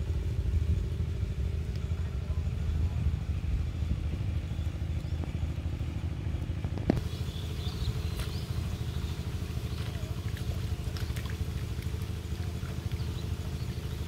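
An engine running steadily in the background: a low rumble with a steady hum over it. A single sharp click about seven seconds in.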